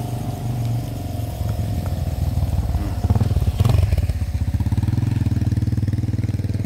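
A motor vehicle's engine running close by with a fast, even pulse, getting louder about three seconds in and staying loud.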